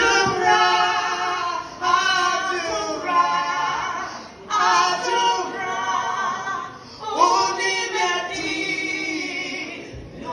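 A woman singing into a microphone through a sound system, without instruments, in phrases a couple of seconds long.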